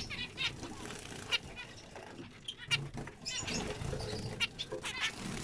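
Several zebra finches calling and singing: many short, separate chirps, one after another, throughout.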